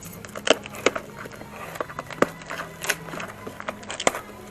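Packaging of a motorcycle muffler being opened and handled by hand: scattered sharp clicks, crackles and scrapes.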